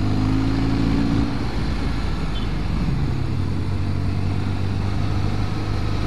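Motorcycle engine running at road speed, with wind noise rushing over the microphone. The engine note rises a little in the first second and dips about three seconds in.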